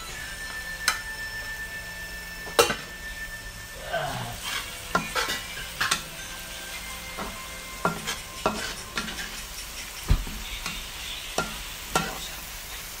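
Steel spatula stirring and scraping a spice paste around a black wok, with repeated clicks and knocks against the pan, over a steady sizzle of the paste frying in oil. A duller low thump comes about ten seconds in.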